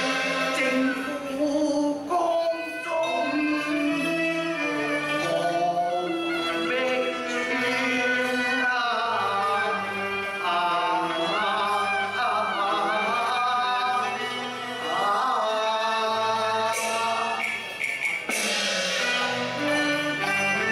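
Cantonese opera song (yuequ) performed live: a singer's voice with long, wavering held notes over the accompanying Chinese instrumental ensemble playing a stepping melody.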